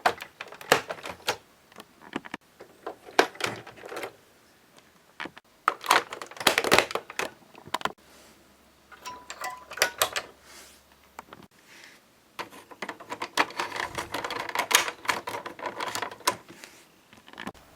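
Plastic parts of the DX Castle Doran toy clicking and clacking as it is handled, in irregular clusters of sharp clicks.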